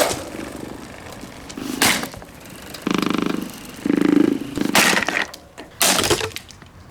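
A cheap, brittle plastic Windmere table fan being smashed: four sharp cracking hits, with two short, loud rattling buzzes between them near the middle.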